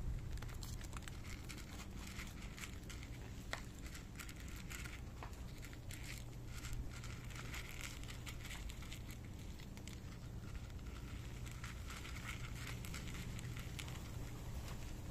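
Two cats crunching dry kibble from a bowl: a dense, irregular run of small crisp crackles and clicks over a low steady background rumble.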